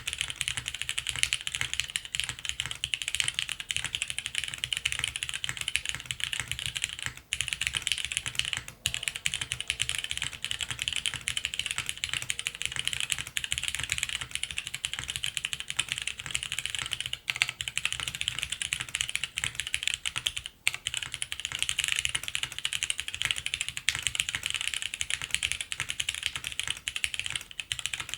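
Fast, continuous typing on a Spyder custom mechanical keyboard with factory-lubed Cherry Hyperglide MX Brown tactile switches, a polypropylene plate and GMK Firefly doubleshot ABS keycaps, with a few brief breaks.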